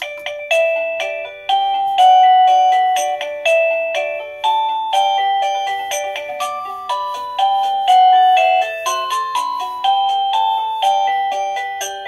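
Govee plug-in wireless doorbell receiver playing one of its built-in chime melodies (number nine of 36) through its small speaker: an electronic tune of many short notes, each fading quickly.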